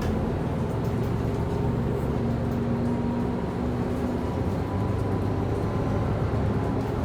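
City bus driving, heard from inside: a steady low engine and road rumble with a faint hum from the drive.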